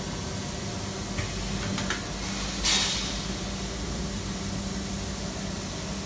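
Fiber laser tube cutting machine feeding and clamping a round pipe: a steady machine hum with a low tone, a few light clicks, and a short burst of air hiss about two and a half seconds in.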